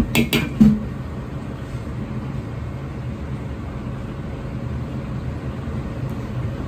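Gas wok burner running with a steady low rumble under a simmering sauce in the wok, with a few quick scrapes and knocks of a metal ladle against the wok in the first second.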